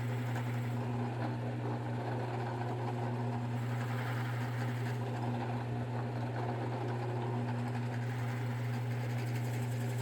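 Power drill running steadily with an even motor hum, boring a hole into the end of a poplar dowel.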